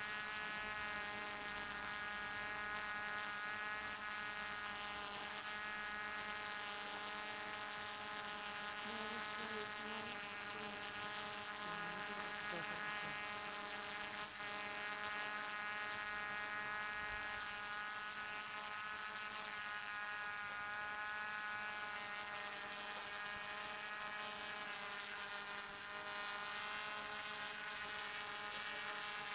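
DJI F450 quadcopter's four brushless motors and propellers running in a hover: a steady buzzing whine made of several tones that waver slightly in pitch.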